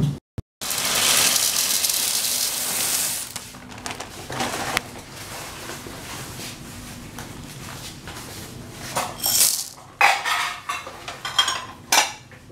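Aluminium cooking pot holding elbow macaroni in water: a loud rushing hiss lasts about three seconds, then metal clinks and clatters come in quick succession near the end.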